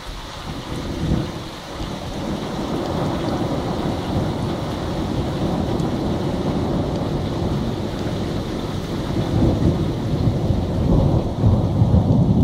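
A long roll of thunder during a thunderstorm, rumbling deep and low with a louder peak about a second in and swelling again near the end, over steady rain.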